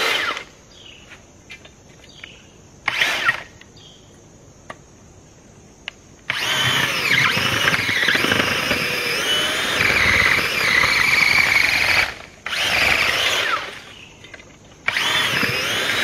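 Makita cordless earth auger's electric motor whining as the bit bores into dirt, in stop-start runs. There are two short bursts near the start, then a long run of about six seconds whose pitch wavers up and down with the load, then two more bursts near the end.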